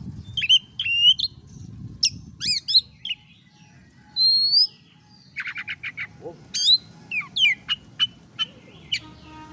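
Oriental magpie-robin singing: a varied string of sweeping whistles and sharp chirps in short phrases with brief gaps, including a quick run of clipped notes about halfway through. A faint steady high-pitched tone sounds throughout.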